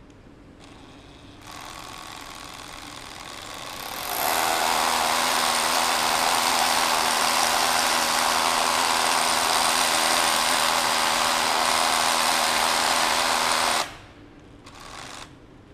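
Cordless Bosch rotary hammer drilling a hole in the wall for an anchor bolt. It starts softly about a second and a half in, comes up to full power at about four seconds, runs steadily and loudly, and stops suddenly near the end. It gives one short burst about a second later.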